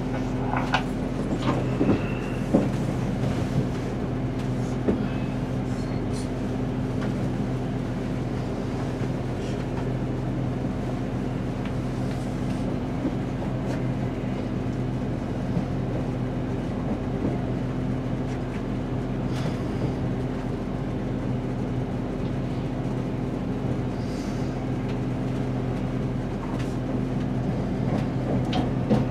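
Passenger train heard from inside the carriage: a steady low hum and rumble, with a few short clicks in the first few seconds.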